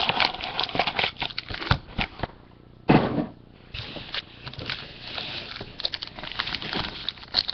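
Trading cards and foil pack wrappers being handled: dense, irregular crackling and clicking, with a brief lull and one louder thump about three seconds in.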